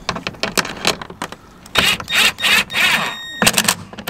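Ryobi cordless drill spinning a socket to tighten the nut on a rear diffuser mounting bolt, run in several short loud bursts on the trigger with a brief steady motor whine near the end, after a run of quick clicks from the socket and spanner on the bolt.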